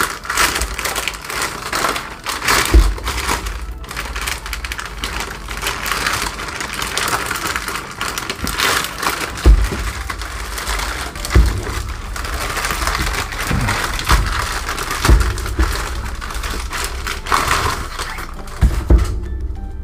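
A plastic poly mailer bag being torn open and crumpled by hand, a continuous crinkling and crackling of thin plastic, with a few dull thumps as the package is handled. The crinkling dies away near the end.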